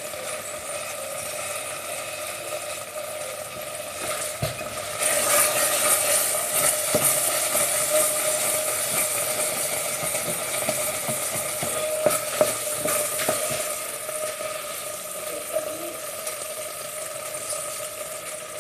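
Risotto sizzling in the pan as it is stirred. The sizzle grows louder about five seconds in, with a few light knocks of the spoon against the pan.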